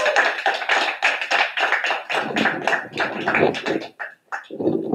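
A few people clapping by hand, dense at first, thinning out after about two seconds and stopping about four seconds in.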